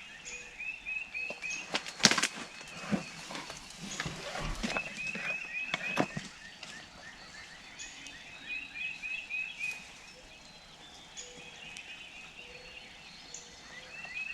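Songbirds singing in repeated runs of quick, high chirps, with scattered sharp clicks and rustles, the loudest about two seconds in.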